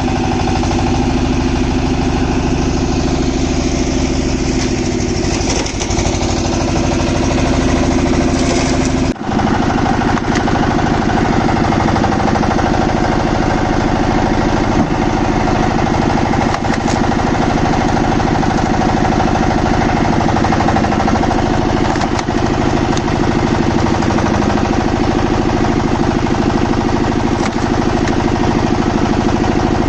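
Engine-driven wood-cutting machine running steadily and loudly. About nine seconds in the sound breaks off for an instant and then carries on with a slightly different pitch.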